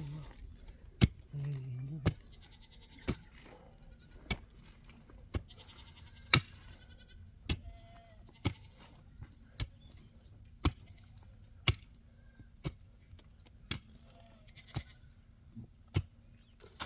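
Sharp knocks, evenly spaced about once a second, like steady striking, with a short bleating call about a second in.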